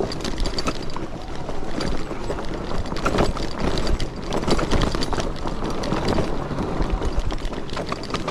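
Fat-tire e-bike rolling over a rough dirt and leaf-covered trail: the tires crunch over the ground while the bike rattles and knocks over bumps in an uneven, continuous racket.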